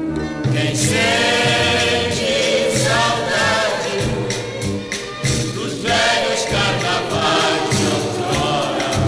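Carnival marchinha from a 1964 LP record: a chorus of voices singing over band accompaniment, with a regular bass beat.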